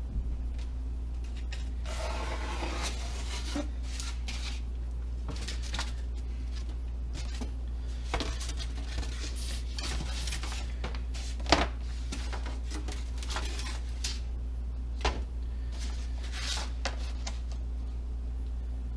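Hands working with model-plane parts and tools at a workbench: rustling and scraping, with short clicks and knocks now and then, the sharpest a bit past halfway. A steady low hum runs underneath.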